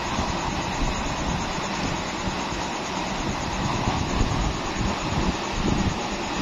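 Strong wind gusting over the microphone: a steady rushing noise with uneven low buffeting.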